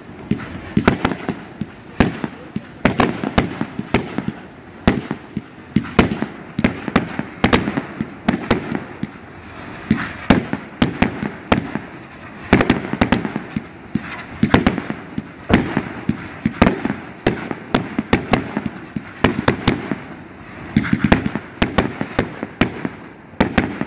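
Fireworks display: aerial fireworks launching and bursting in rapid succession, a continuous run of sharp bangs and crackles, several a second.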